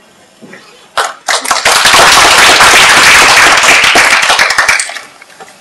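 Audience applauding in a lecture hall. The applause starts about a second in, keeps up steadily, and dies away near the end.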